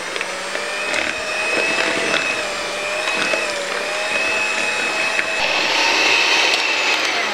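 Miyako electric hand mixer running with a steady whine, its beaters churning a thick sweet-potato batter in a plastic bowl, with a few clicks of the beaters against the bowl. It gets louder about five seconds in and winds down at the very end.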